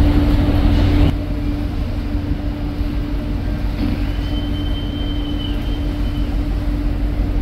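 Steady low rumble and constant hum of a container ship's machinery while under way, a little quieter after about a second; a faint high whine sounds for a couple of seconds about four seconds in.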